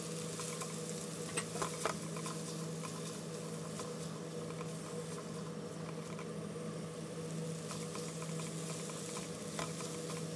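Chickpeas and bacon sizzling in a frying pan while a spatula stirs them, with a few sharp taps and scrapes of the spatula on the pan, about a second and a half in and again near the end. A steady hum runs underneath.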